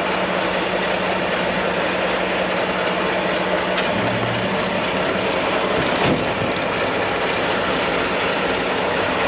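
Steady machine running noise with a constant low hum, and a brief faint knock about six seconds in.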